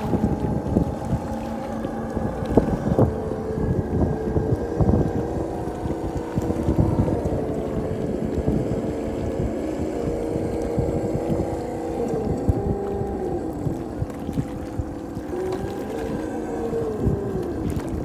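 Electric motor and gear whine of a Traxxas TRX-4 RC crawler driving over rock, holding a steady pitch for most of the time, then wavering up and down in pitch near the end as the throttle changes. Wind buffets the microphone throughout, a low rumble under the whine.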